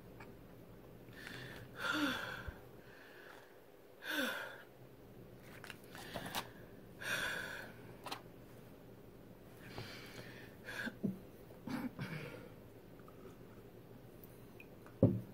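A woman's short breathy puffs and soft throat sounds, a few separate bursts, as she wipes makeup powder off her mouth with a hand towel. Near the end, a sharper, louder throat sound as she drinks from a mug.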